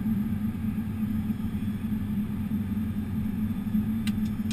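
Steady flight-deck noise of an aircraft on approach: a constant low hum with a rush of air over it. A few faint clicks come near the end.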